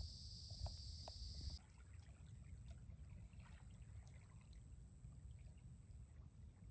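Faint lakeshore ambience: water lapping at the shore with a low rumble. A thin, steady high-pitched tone comes in about a second and a half in and breaks off briefly twice.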